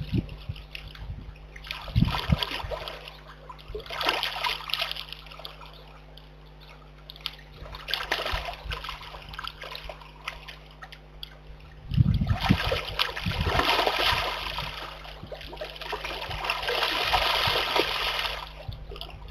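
Brown bear cub splashing and sloshing in a shallow muddy pool: short bursts of splashing, then a longer, louder stretch of splashing from about twelve seconds in until near the end.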